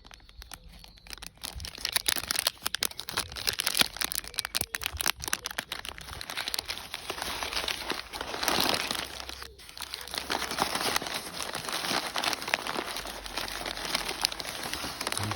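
Packaging rustling and crinkling as items are handled and unwrapped, with many small clicks and taps throughout.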